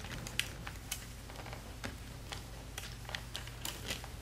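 Faint, irregular small clicks and ticks from fingers handling a laptop logic board and its cables, over a steady low hum.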